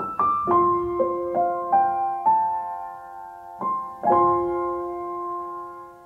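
Slow, gentle solo piano music added to the soundtrack. Single notes climb one after another, then a chord is struck about four seconds in and left to ring.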